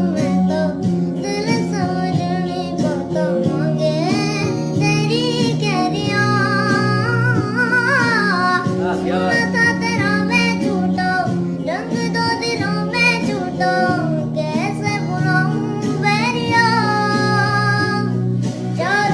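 A solo voice singing a Hindi song melody with ornamented, wavering notes, over steady instrumental backing.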